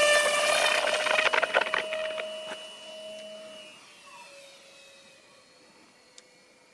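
Twin electric motors and propellers of an Eachine Airloader RC plane at full throttle on its takeoff run, a steady high whine that fades away from about four seconds in as the plane climbs off into the distance.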